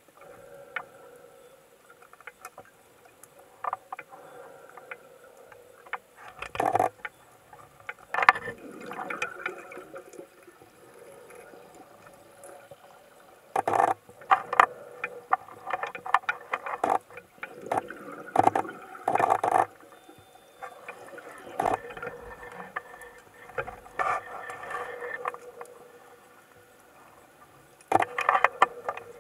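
Muffled underwater sound picked up by a camera in a sealed underwater housing. Irregular knocks and rushing noises come and go, over a faint steady hum and scattered small ticks.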